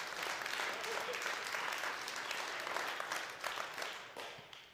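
Congregation applauding: many hands clapping in a dense patter that dies away near the end.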